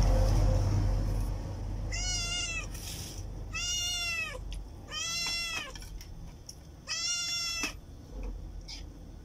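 A cat meowing four times, about a second and a half apart, each meow a drawn-out call that rises and then falls in pitch. A low rumble fades out during the first second or so.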